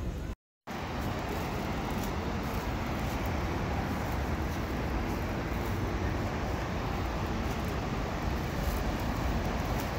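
Steady low outdoor background noise with no clear single source. A brief cut to silence comes just after the start.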